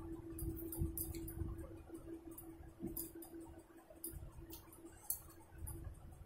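Fingers squishing and mixing rice with curry on a steel plate, with scattered light clicks and taps against the metal. A steady low hum runs underneath.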